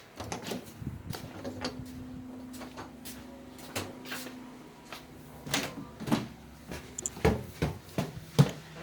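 Knocks and clicks of a door and footsteps as someone moves through a house. The sharpest knocks come in the second half, over a faint steady hum in the first half.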